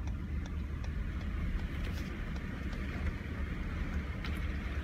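Car running, heard from inside the cabin: a steady low engine and road rumble, with faint scattered ticks.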